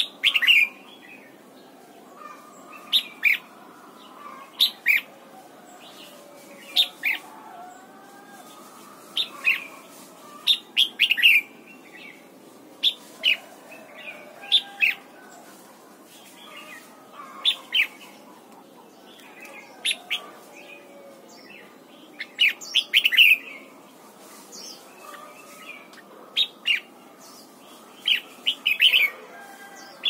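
Red-whiskered bulbul singing: short, bright chirped phrases of one to three notes, repeated every second or two.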